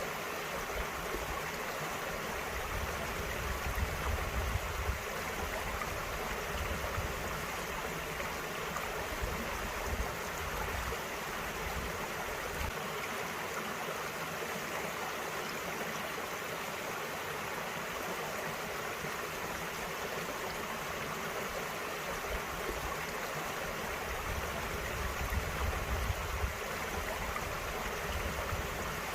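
Small valley stream running over rocks: a steady rush and gurgle of water, with a low rumble coming and going.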